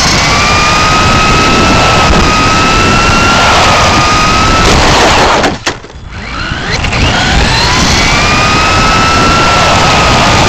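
Electric motor and gear whine of a radio-controlled car, heard from a camera riding on it, over heavy rumble from the tyres and wind. About five and a half seconds in, the sound drops away for about a second as the throttle comes off, then the whine rises again as the car speeds back up.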